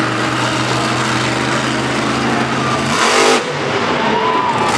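Monster truck engine running at steady revs, then revving up hard in a sharp surge about three seconds in as the truck takes off for a jump over crushed cars.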